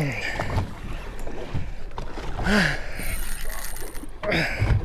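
Steady wind and water noise aboard a small boat at sea, with a few short voice sounds.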